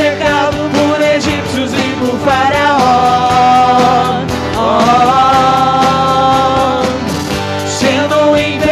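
Live worship band playing a Portuguese praise song, acoustic guitar and keyboard under a singer who holds two long notes with vibrato, about three and five seconds in.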